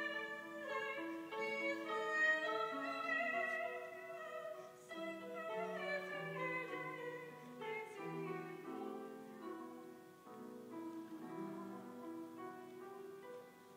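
Woman singing in a classical operatic style with wide vibrato, accompanied by piano. In the second half the sung line drops back and the piano goes on, growing quieter.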